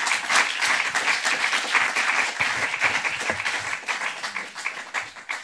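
Audience applauding: dense clapping that thins out into fewer, separate claps and fades toward the end.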